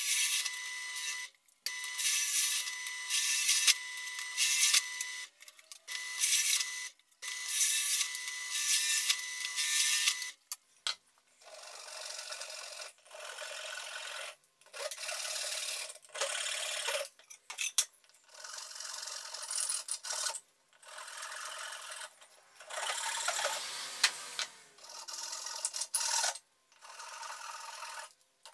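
Benchtop drill press running with a steady whine, its bit boring through plywood, heard in several short takes. After about ten seconds it gives way to repeated spells of a hand tool scraping on the plywood.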